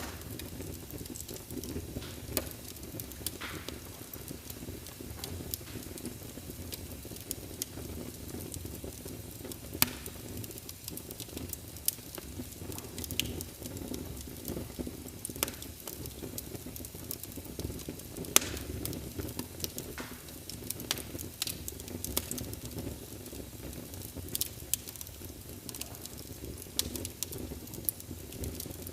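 Wood fire crackling: a steady low rumble of burning logs with irregular sharp snaps and pops, a few of them louder than the rest.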